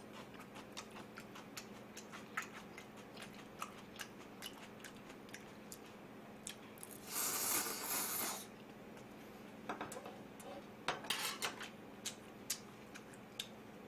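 Eating sounds: scattered light clicks of metal chopsticks against a plate, and a slurp of instant ramen noodles lasting about a second, about seven seconds in. A quick cluster of clicks follows about eleven seconds in.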